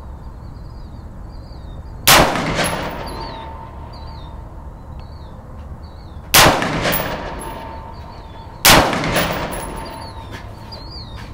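Del-Ton AR-15 semi-automatic rifle fired in single, slow, aimed shots: three shots a few seconds apart, each followed by an echo that dies away over about a second.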